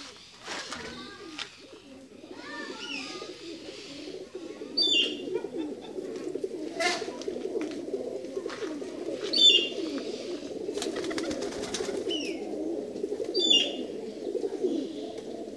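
A cage full of pigeons cooing together in a continuous low warble that fills out a few seconds in, with several short high chirps cutting in over it.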